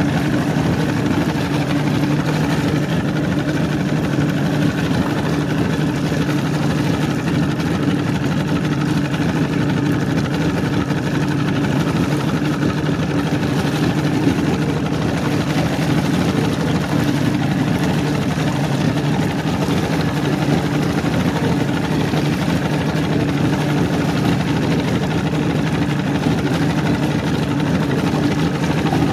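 Mariner Magnum II two-stroke outboard motor running steadily at low speed, pushing the boat along, with water churning at the transom. Its pitch and level hold even throughout.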